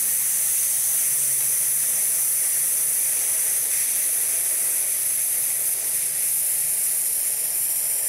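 A woman's long, steady hissed 's' exhale through the teeth, kept even with no break. It is the slow, controlled release of breath in a diaphragmatic breathing-support exercise, stretched over a count of ten.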